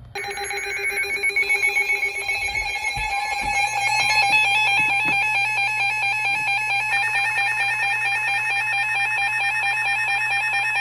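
Emergency Alert System attention signal: a loud, steady two-tone alert tone with a harsh, slightly warbling edge. It sounds continuously, announcing an incoming severe thunderstorm warning.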